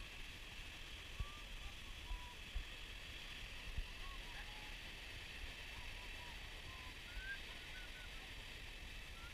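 Beach ambience: a steady high hiss with scattered faint short chirps, and a few low thumps of wind on the microphone.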